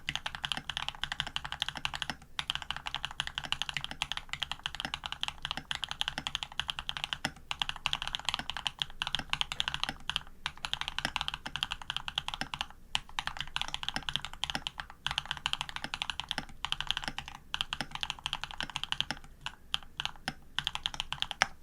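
Ar87 custom mechanical keyboard being typed on fast and continuously, its hand-lubed Jade cream switches and PBT keycaps on an aluminium plate giving a dense run of rapid key clacks with brief pauses, stopping abruptly at the end.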